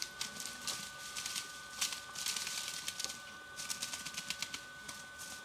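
Dry undergrowth and twigs rustling and crackling in quick irregular clicks as a dog forages and pushes through it, with a faint steady high whine underneath.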